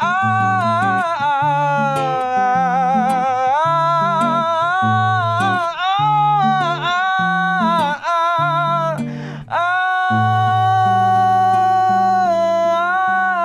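Wordless singing over acoustic guitar: a voice holding long notes with vibrato while the guitar plays low notes beneath, ending on one long held note.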